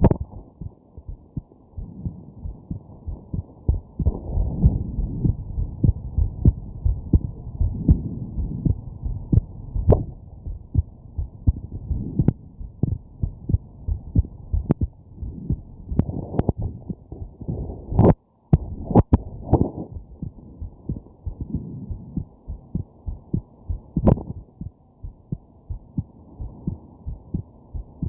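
A person's heartbeat, a run of regular low thumps. A few sharp, irregular jolts break in from hiccups.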